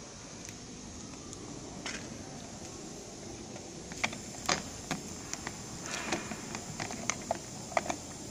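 Irregular light clicks and taps of hands working cables and fittings on a metal-framed glass skylight, starting about halfway through, over a steady background hiss.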